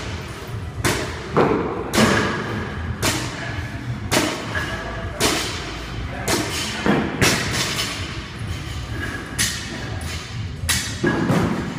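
Loaded barbells with black weight plates thudding down on a rubber gym floor about once a second during repeated deadlifts, the plates of two bars landing in turn. Music plays faintly behind.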